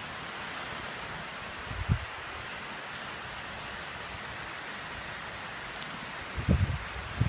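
Steady hurricane rain falling, an even hiss. A few short low thumps break through, once about two seconds in and twice near the end.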